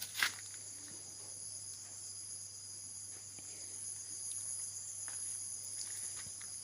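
Steady high-pitched chirring of insects, with a sharp click just after the start.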